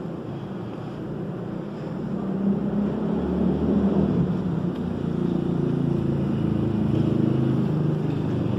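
A motor vehicle's engine running, growing louder about two seconds in and then holding steady.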